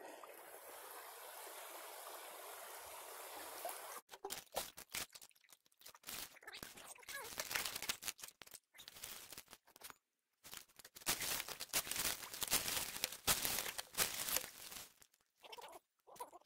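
A steady hiss for about four seconds, then irregular bursts of splashing and scraping as hands dig gravel from the bedrock under shallow creek water for gold prospecting.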